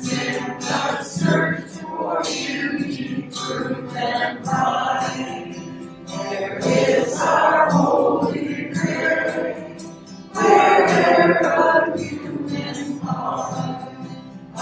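Group of men's and women's voices singing a hymn together, with held notes and a louder phrase just after the middle.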